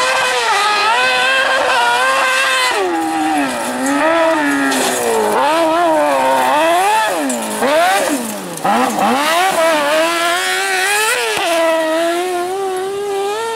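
Rally car engine being driven hard on a stage: its pitch repeatedly climbs under acceleration and drops at gear changes and lifts, over and over.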